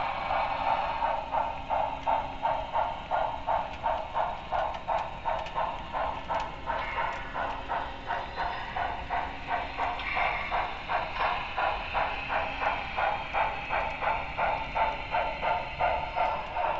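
Steam-locomotive chuffing from the sound decoder and speaker of a Broadway Limited Paragon 3 HO-scale 2-10-4 model, an even beat of about two and a half chuffs a second as the engine runs steadily under way.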